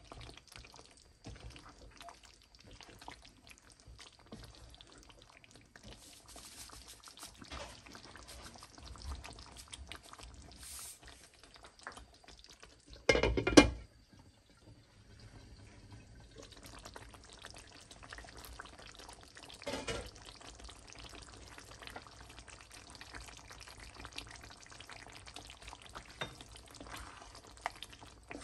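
Wooden spoon stirring thick chicken curry in a frying pan. About halfway through, a glass lid is set on the pan with a brief clatter, the loudest sound.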